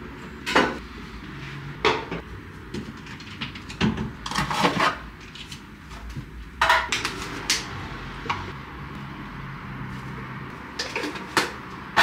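Kitchen handling sounds while a pre-workout drink is made up in a water bottle: irregular knocks and clinks of containers, utensils and a cupboard door every second or two, with a small cluster of them about four seconds in.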